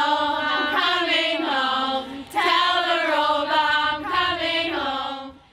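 A group of young women singing together in chorus, holding long notes, with a short break about two seconds in before the next line.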